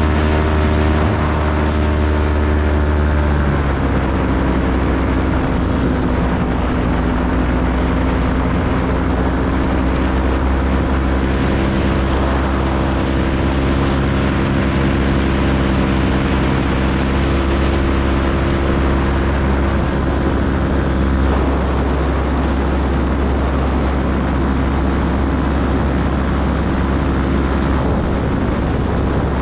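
Paramotor engine and propeller running steadily, the engine note dropping to a lower pitch a few seconds in and then holding.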